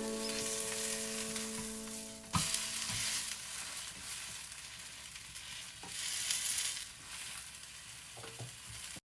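Squid and minari pancake batter sizzling in hot oil in a frying pan, a steady crackling hiss, with a sharp knock of a utensil against the pan a couple of seconds in and a few lighter taps later.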